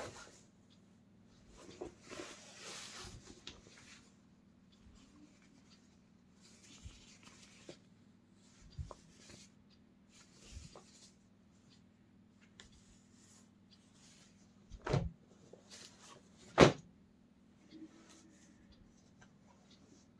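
Denim jeans rustling as they are handled and laid out on a table, with scattered soft knocks and two louder sharp knocks in the last third, over a faint steady hum.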